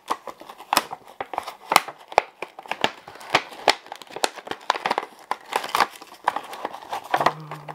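Clear plastic boxes of foam roses being handled and opened: irregular crinkling and clicking of the plastic packaging.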